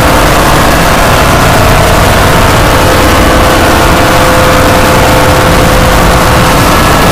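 Deliberately overdriven, clipped edit audio at near full volume: a steady wash of noise across all pitches with a few faint held tones buried in it, with no change throughout.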